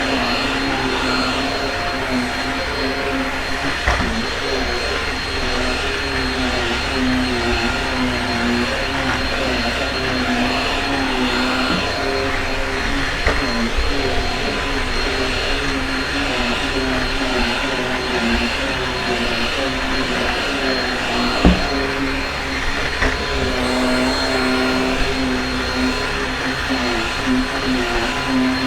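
Shark Rocket stick vacuum running steadily while vacuuming carpet, a constant motor hum and suction noise. A couple of short sharp knocks cut in, the loudest about 21 seconds in.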